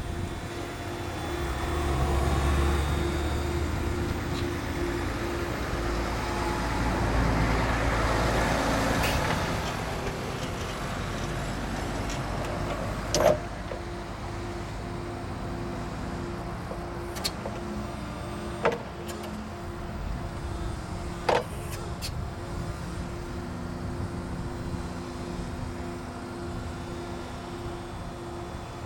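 OM Pimespo E18 electric forklift running with a steady, slightly pulsing electric hum, which swells louder with a low rumble for roughly the first ten seconds. From about halfway on there are four or five sharp metallic clanks, a few seconds apart.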